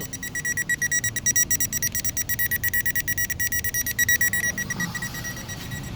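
Rapid, even electronic beeping from the car's warning beeper, about six high beeps a second, fading out near the end.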